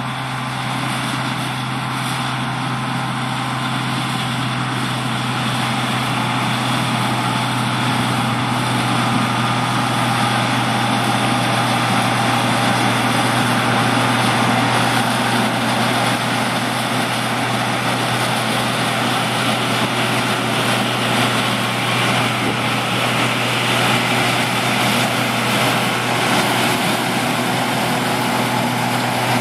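Heavy farm machinery running steadily under load: a constant low hum beneath a dense mechanical din that grows a little louder over the first dozen seconds.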